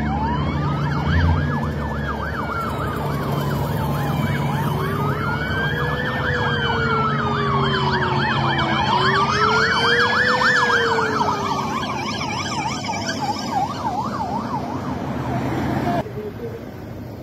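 Several police car sirens sounding at once: slow rising-and-falling wails overlap a fast yelp, over steady traffic noise. The sirens fade away about thirteen seconds in.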